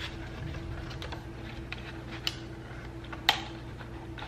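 A few sharp, separate clicks from handling the plastic camping lantern, over a steady low hum.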